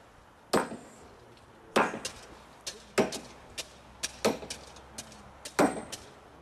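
Track spikes driven into wooden railway ties with a long-handled spike maul: five heavy blows about one and a quarter seconds apart, with lighter clinks between them.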